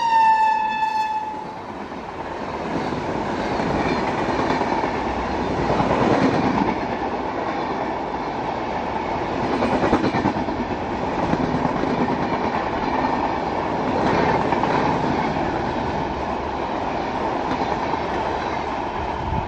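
Horn of a passing electric locomotive sliding slightly down in pitch and cutting off about a second and a half in. Then the Humsafar Express's coaches rush past at speed, their wheels clattering over the rail joints.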